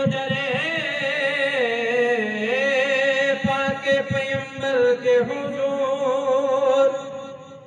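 A man singing a devotional manqabat into a microphone, drawing out long, wavering held notes that glide slowly in pitch. The voice falls away near the end.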